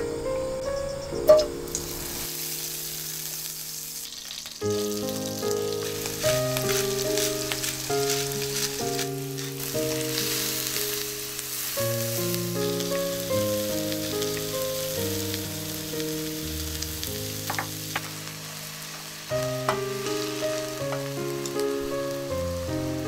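Sliced onions frying in olive oil and butter in a nonstick pan, sizzling steadily as they are stirred with wooden chopsticks. A sharp tap comes just over a second in, and the sizzle starts about two seconds in. Background music plays throughout.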